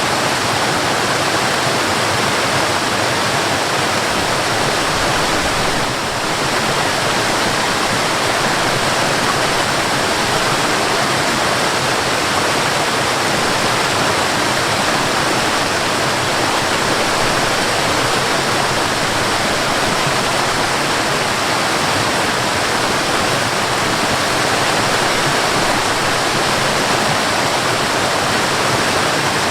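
Mountain waterfall rushing steadily, a dense, even roar of falling water.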